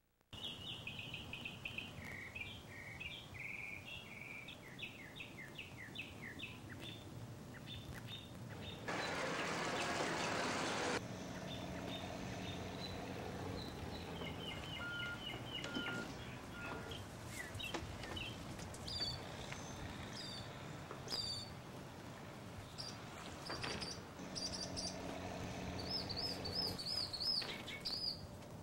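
Birds chirping over a low, steady drone of heavy machinery such as a wheel loader's diesel engine. About nine seconds in, a loud hiss lasts about two seconds. Around fifteen seconds in there are three short, evenly spaced beeps.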